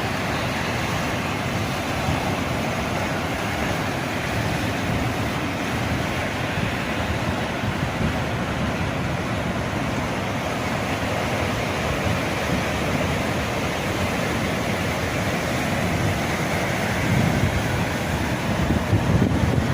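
Strong wind rushing over the microphone by the open sea, a steady noise with waves beneath it, gusting harder near the end.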